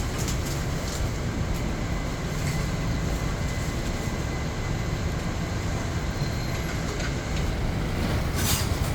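Steady low rumble of a moving vehicle, with a few faint clicks and a brief hiss near the end.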